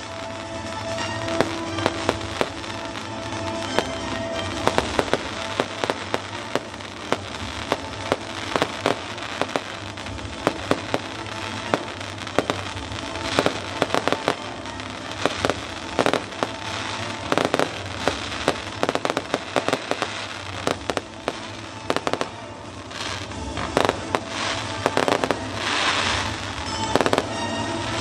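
Fireworks display: a rapid, irregular string of shells exploding, with sharp bangs and crackling bursts that come thicker in the second half. Music plays underneath.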